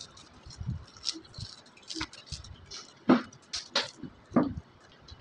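Irregular crunching and crackling of potato chips being chewed and handled on plates by several children, with a few sharper, louder crunches about three to four and a half seconds in.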